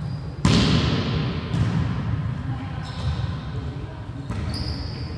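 Volleyball being hit during a rally: four sharp smacks a little over a second apart, the first, about half a second in, the loudest. Each rings on in the echo of a large gym hall, over steady background noise.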